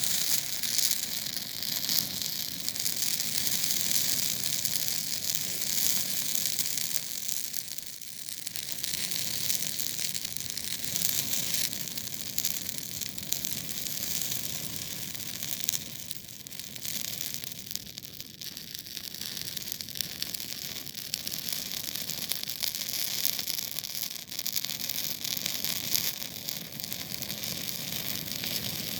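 Campfire burning: a steady hiss with many small crackles and pops throughout.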